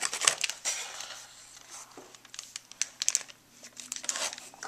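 Clear plastic packaging bags holding toy parts crinkling as they are handled, in irregular crackles that thin out in the middle and pick up again near the end.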